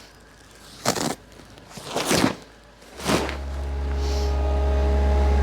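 A few knocks and footsteps, then about three seconds in an engine, most likely the tractor's diesel, starts and settles into a steady low idle.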